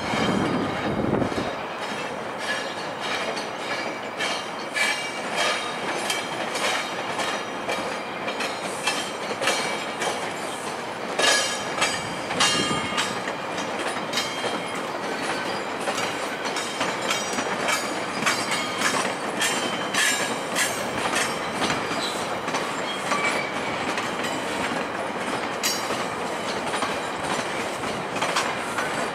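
Bilevel passenger coaches of a departing GO Transit train rolling slowly past, their steel wheels clacking irregularly over the station's switches and crossings. Short high wheel squeals come and go.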